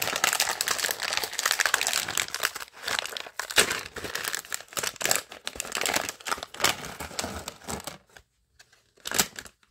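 Plastic toy packaging bags crinkling and rustling as they are handled and crumpled, continuously for about eight seconds, then a few short crinkles near the end.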